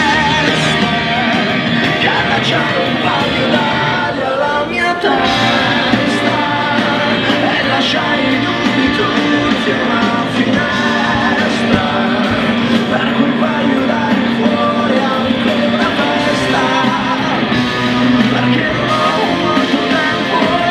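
A song with a singer over a band, played loud and steady.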